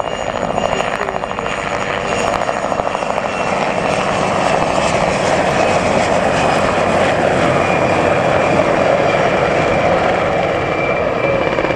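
Two turbine helicopters, a Mil Mi-2 and an Enstrom 480B-G, flying past together: steady rotor and engine noise with a high turbine whine.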